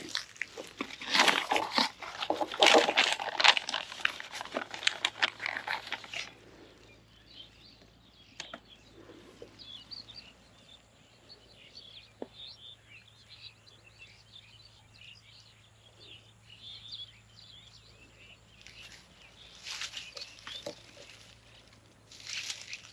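Loud rustling, scraping noise for about the first six seconds, then birds chirping faintly and continually, with two shorter bursts of rustling near the end.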